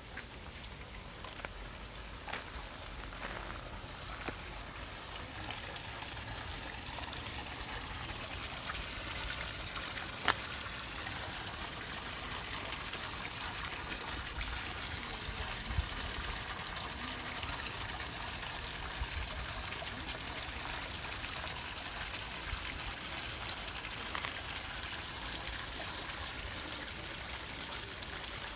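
Running water trickling and splashing steadily, like a small stream or spill, growing a little louder over the first few seconds. A few light ticks come early on, and one sharper tick about ten seconds in.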